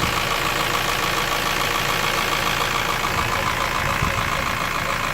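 Honda S2000 AP1's F20C 2.0-litre four-cylinder engine running steadily with a fast, even knock. The owner suspects piston slap.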